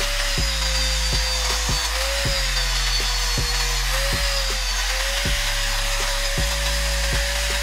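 Angle grinder with a thin disc grinding rust off a steel hammer head, heard together with background music with a steady beat.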